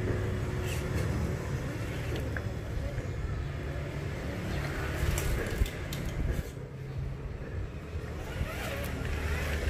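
A Traxxas TRX-6 radio-controlled rock crawler driving, with its electric motor and drivetrain running over a steady low rumble. A few sharp knocks and crunches come from the truck on the ground, clustered in the middle and again near the end.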